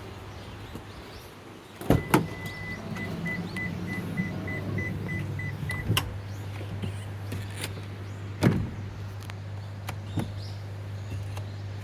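Microwave oven being started: a couple of clicks, one long electronic beep and then a run of short beeps, then a steady low hum as it runs, with a few knocks later on.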